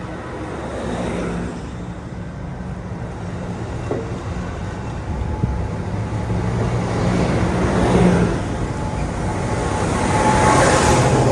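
Approaching Amtrak Pacific Surfiner train: a diesel locomotive's low engine rumble mixed with wheel and track noise, growing steadily louder.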